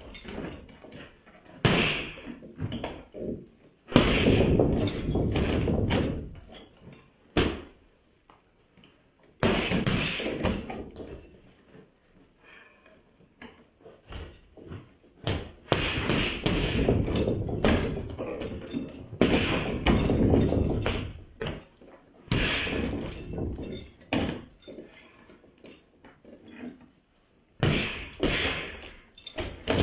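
Boxing-gloved punches landing on a heavy punching bag in flurries of thuds, each run lasting a few seconds with short pauses between.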